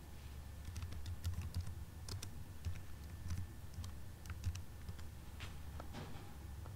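Typing on a computer keyboard: irregular key clicks of a shell command being typed, over a low steady hum.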